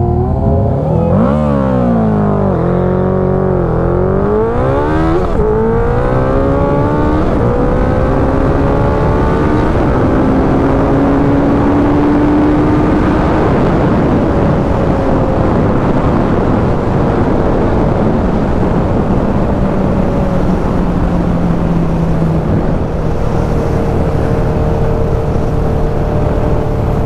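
Suzuki Hayabusa's 1300cc inline-four accelerating hard from a standing start in a drag race. The revs climb and drop through several quick upshifts in the first few seconds, then climb more slowly through the higher gears and hold steady at high speed, with heavy wind rush on the helmet microphone.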